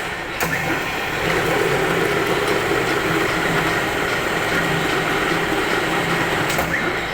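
Metal-turning lathe running. It gets louder about a second in, holding a steady low hum, and drops back near the end, with a sharp click at each change.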